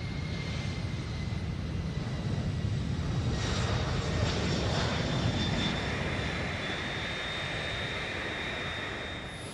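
Large jet aircraft: a steady roar of engines and rushing air with a thin high whine, a little louder from about three to six seconds in.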